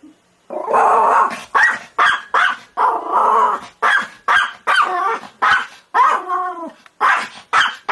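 A dog barking over and over, about a dozen loud barks at roughly two a second after a brief pause at the start. A few barks are drawn out, and one about six seconds in bends down in pitch like a whining yelp.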